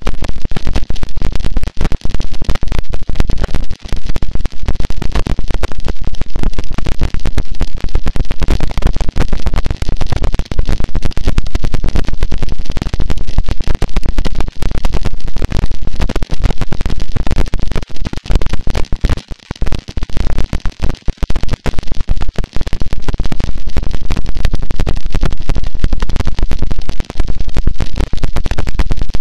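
Harsh noise wall: a loud, dense wall of distorted static noise that never changes in character, heaviest in the low end and broken by many momentary dropouts.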